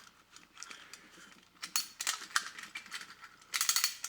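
Light metallic clicks and knocks from a 1950s Linemar tin robot being handled, with a denser cluster of clicks near the end.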